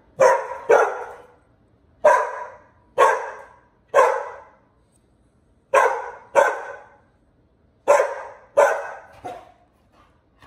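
A dog barking repeatedly: about ten sharp barks in short runs of two or three, with brief pauses between the runs.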